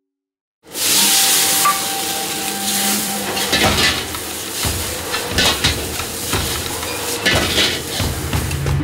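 Food sizzling and frying hard in a wok over a high flame, with a metal ladle scraping and clattering against the wok. It starts abruptly a little under a second in.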